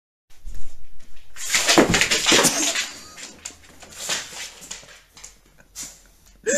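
A dog's claws scrabbling and clicking on a wooden floor as it skitters about. The scuffling is loudest from about a second and a half to two and a half seconds in, then thins to a few lighter clicks.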